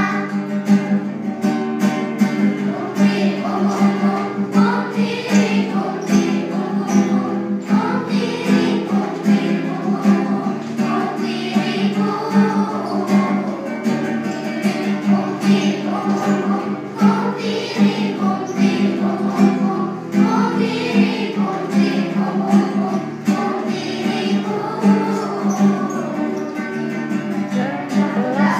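A group of children singing a song together in unison over an instrumental accompaniment with a steady beat.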